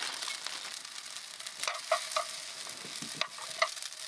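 Green tea soba (cha soba) noodles sizzling as they are stir-fried in an oiled frying pan. A cooking utensil clicks and scrapes against the pan several times as the noodles are tossed.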